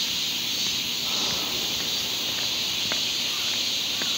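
Steady high-pitched outdoor hiss with a few faint, light clicks scattered through it.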